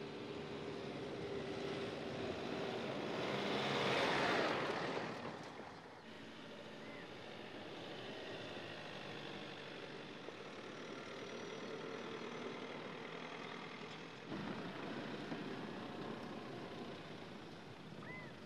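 Mercedes-Benz X-Class pickup's 2.3-litre four-cylinder turbodiesel running as the truck drives along a dirt track, with tyre and road noise. The sound swells to its loudest about four seconds in, then settles to a steady run, with a sudden step up in level about fourteen seconds in.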